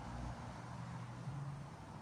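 Many honeybees buzzing in flight around the hive, a steady hum that wavers in pitch as bees pass. The hum is the colony's busy flying at the entrance, which the beekeeper feared was the start of a swarm but found no queen cups or cells.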